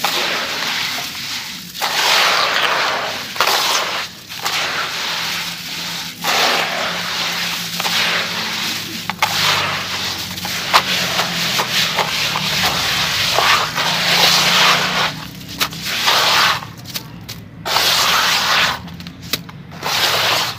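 Hands crumbling and squeezing a gritty cement-and-sand mix in a metal tub: a dry, crunchy rustling that comes in repeated handfuls of a second or two with short pauses between them, dotted with small sharp crackles.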